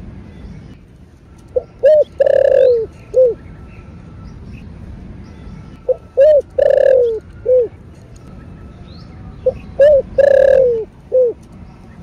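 Spotted dove cooing: three song phrases about four seconds apart, each made of a couple of short coos, one long deep coo that falls slightly, and a short closing coo.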